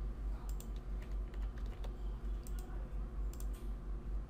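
Computer mouse and keyboard clicks in small scattered groups over a steady low electrical hum.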